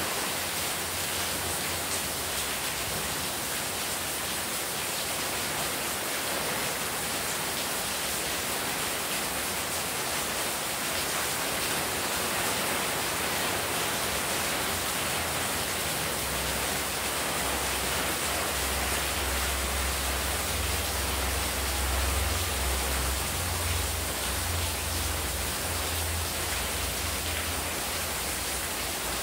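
Heavy rain falling steadily, with a stream of water pouring off the roof edge and splashing onto the courtyard floor. A low rumble joins the hiss through the second half.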